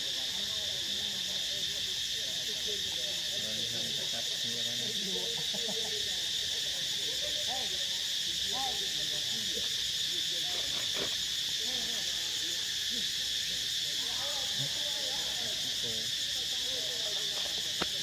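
Steady, high, unbroken insect chorus of forest crickets or cicadas, with faint wavering pitched calls underneath.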